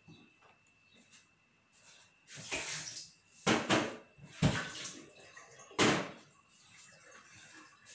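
Water splashing and running in four short gushes, as into a sink, starting about two seconds in.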